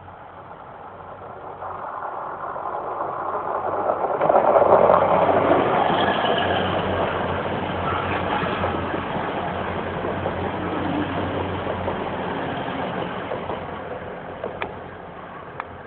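Grand Central Class 180 diesel multiple unit passing through a station without stopping: the underfloor diesel engines and wheels on the rails build up over about four seconds as it approaches, peak as the front goes by, then run steadily as the carriages pass before easing off near the end.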